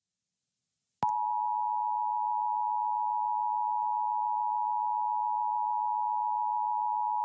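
Emergency Alert System two-tone attention signal, a steady dual sine tone (853 Hz and 960 Hz) starting about a second in and holding level, sounded for a Required Monthly Test.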